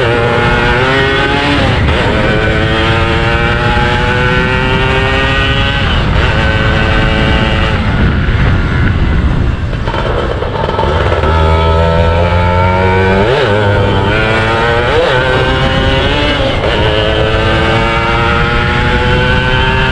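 Yamaha F1ZR's single-cylinder two-stroke engine pulling through the gears while ridden, its pitch climbing in repeated runs that drop back at each shift. It eases off to a lower steady note about ten seconds in, then revs up again to the end.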